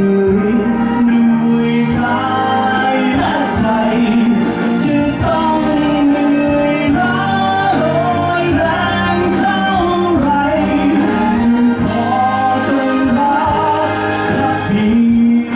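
Navy band playing a song with a singer: a sung melody over held band chords and a steady bass.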